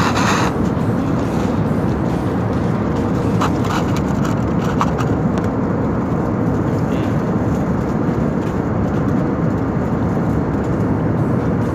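Steady rushing cabin noise of an airliner in flight, the engines and airflow heard from a window seat. A few light clicks and scrapes from handling the meal tray, cup and foil come through on top near the start and about four seconds in.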